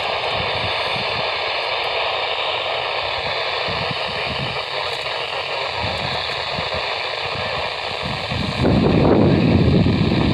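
Weather radio tuned to a weak NOAA Weather Radio signal: a steady hiss of static with the automated announcer's voice faint and broken beneath it. About eight and a half seconds in, a louder low rumble comes in over the hiss.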